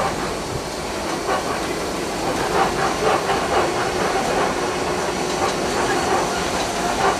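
Safari truck driving over a rough dirt track: steady engine and road noise, with the body rattling and clattering over the bumps.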